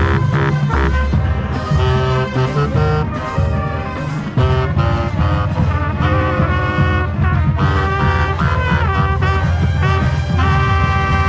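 College marching band playing its field show, brass section leading with sustained chords and moving lines over a steady drum beat.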